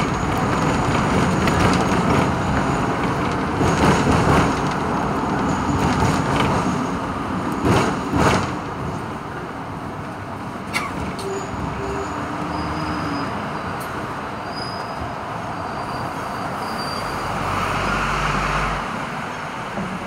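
Hong Kong double-decker electric tram running along street track, heard from on board, with a steady rumble and rattle and road traffic alongside. A few louder knocks come in the first half, and the noise is quieter in the second half.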